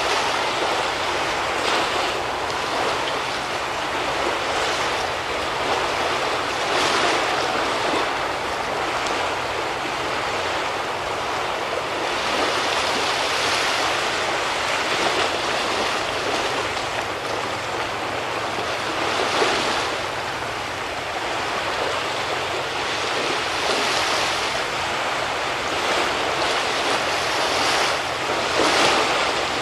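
Sea waves washing against the shore in a continuous wash, swelling up in surges every few seconds.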